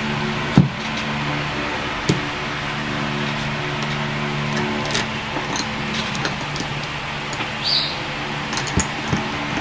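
Scattered plastic clicks and knocks as an action-camera chin mount and its thumbscrew are handled and fitted against a full-face motorcycle helmet, the sharpest about half a second in. Under them runs a steady low mechanical hum.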